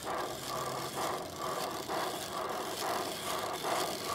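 Large-scale garden railway model steam locomotive moving slowly along the track, chuffing with a regular beat of about two to three chuffs a second.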